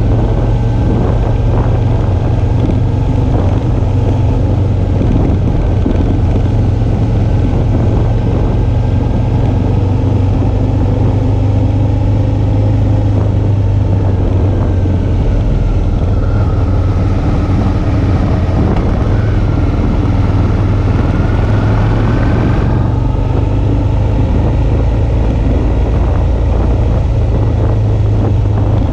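Suzuki V-Strom 650's 645 cc V-twin engine running steadily under way, with wind and road noise on the bike-mounted camera's microphone.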